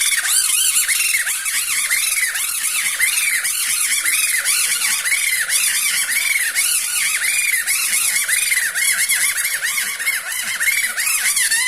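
Squeaky, chirping puppet voice made with a kathputli puppeteer's mouth reed (boli): a rapid string of short high squeaks, each rising and falling in pitch, about two to three a second.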